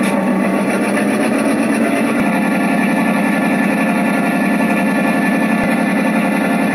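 Model passenger train running along the layout track: a loud, steady mechanical rumble of wheels and motor.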